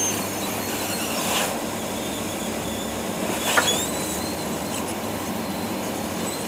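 Steady background hum with faint high squeaks, and a short sharp scrape about three and a half seconds in, as a soldering iron tip and metal tweezers work a small diode onto a circuit board.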